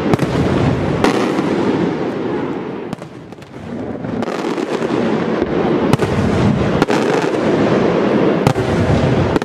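Aerial firework shells bursting in a continuous rapid rattle of reports, with about five sharper bangs standing out. There is a brief lull about three seconds in.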